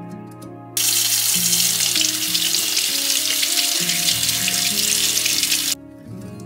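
Kitchen tap running, its stream spraying over a tomato being rinsed in a stainless-steel sink: a loud, even hiss that starts suddenly about a second in and cuts off sharply near the end. Soft music plays underneath.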